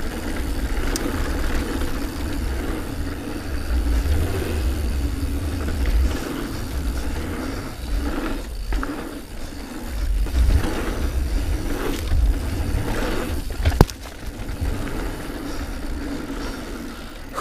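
Diamondback Release 3 mountain bike riding fast down dirt singletrack: a steady wind rumble on the action camera's microphone, with tyre noise and scraping that swell and ease. There are a few short knocks, the sharpest about three-quarters of the way through.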